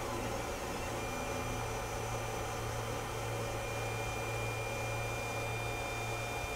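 Creality CR-10 3D printer running mid-print: a steady hum from its cooling fans and stepper motors, with a thin high tone joining about a second in.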